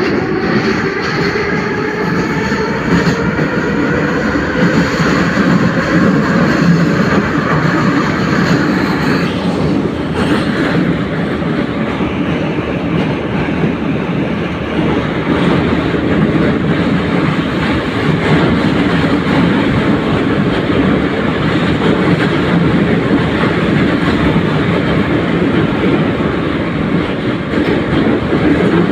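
Kyiv Metro train of ex-Warsaw 'numbered' cars, heard from inside the car, pulling away from a station: the traction motors whine upward in pitch for about the first nine seconds, then the train runs on at speed with a steady rumble of wheels on rails.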